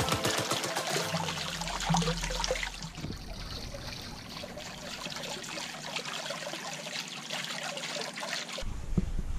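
Fountain water splashing and trickling into a pond, from a stone urn fountain overflowing onto its plinth and wall spouts pouring into the basin. Background music fades out in the first second.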